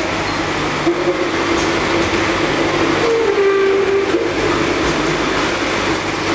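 Bottled-water production line running: the stainless slat-chain conveyor and its drive give a steady mechanical running noise with a low hum, and a brief higher whine about three seconds in.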